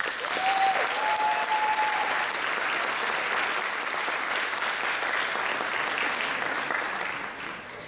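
Audience applauding steadily after a dance number, with one person giving a long, high cheer over the clapping in the first two seconds. The clapping eases off slightly near the end.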